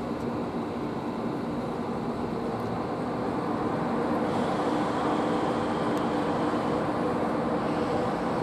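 TGV Réseau high-speed trainset pulling slowly into the platform: a steady hum with a few held low tones, growing a little louder about four seconds in.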